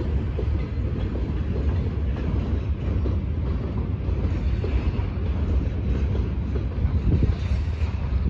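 Freight train of tank cars crossing a steel truss railway bridge: a steady low rumble of the wagons, with wheels clattering over the rail joints.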